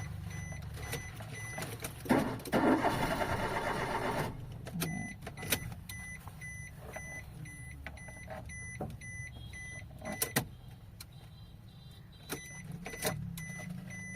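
A stationary car with a steady low hum and a short electronic beep repeating about twice a second. About two seconds in, a louder rough mechanical noise lasts roughly two seconds, and sharp clicks follow later. The car is failing to start after rat damage to its wiring.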